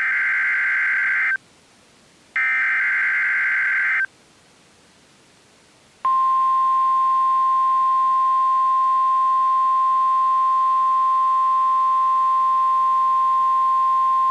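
NOAA Weather Radio alert signalling: two harsh, buzzing bursts of SAME digital header data about a second apart. About six seconds in, the steady 1050 Hz warning alarm tone starts and holds, announcing a new warning.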